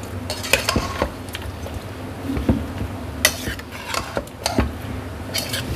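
A metal spoon stirring chunks of raw beef, onion and tomato in an aluminium pressure cooker, with irregular scrapes and clinks of the spoon against the pot.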